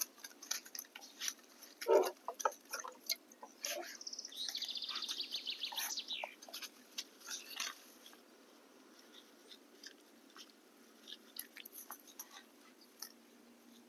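Scattered clicks and crackles of grass being handled, with a fast, evenly pulsed high trill lasting about two seconds from about four seconds in; after about eight seconds only faint scattered ticks remain.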